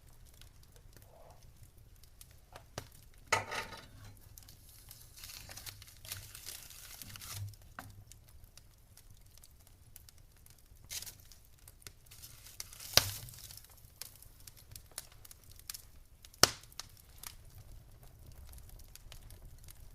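Wood fire crackling in a fireplace: scattered small snaps, with three louder pops about three, thirteen and sixteen and a half seconds in, and a soft hiss for a few seconds in between.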